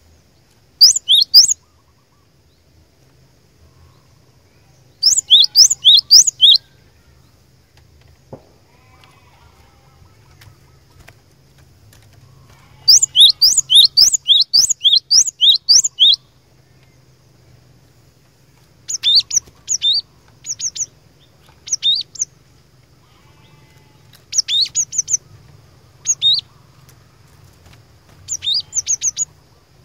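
Cinereous tit (gelatik batu) singing: fast runs of high, downward-sweeping notes grouped into phrases with quiet gaps between them. The longest run, about three seconds, starts about a third of the way in, and shorter phrases come near the end.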